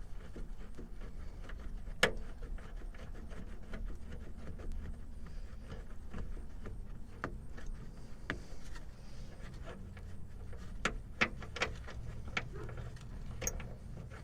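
Socket wrench being worked on a seat belt's floor-mount nut: scattered, irregular metal clicks and knocks, the sharpest about 2 seconds in and a cluster near the end, over a steady low hum.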